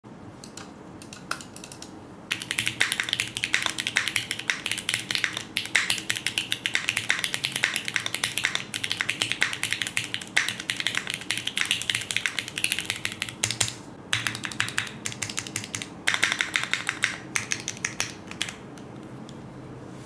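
Typing on a Singa Kohaku R2 mechanical keyboard with lubed Cherry MX Black Hyperglide linear switches in an aluminium plate: fast, dense runs of keystroke clacks. A few scattered key presses come first, the typing pauses briefly twice in the second half, and it stops shortly before the end.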